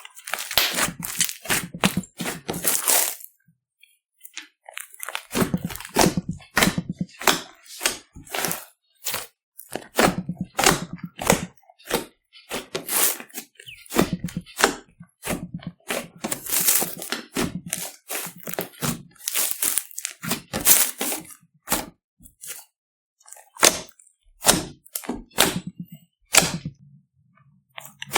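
Glossy slime being squished and mixed by hand, giving an irregular run of sharp crackling pops and clicks, with a short pause about four seconds in.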